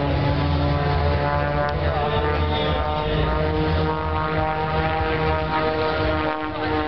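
Aerobatic propeller plane's piston engine and propeller droning steadily overhead during a smoke-trailing display manoeuvre.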